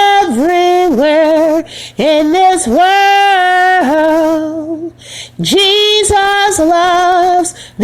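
A woman singing unaccompanied, slow held notes with vibrato in three phrases, with a gap of about a second and a half near the middle.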